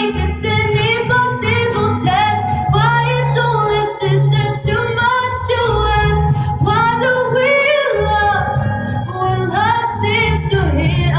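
A woman singing a melody with held notes and vibrato, over an accompaniment with a steady low bass line.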